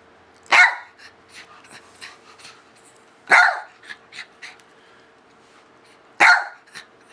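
Bichon Frise barking three times, single sharp barks about three seconds apart.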